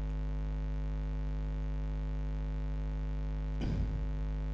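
Steady electrical mains hum with many overtones, picked up by the recording microphone, with a brief soft noise about three and a half seconds in.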